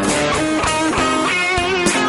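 Music led by an electric guitar playing a melody of held notes.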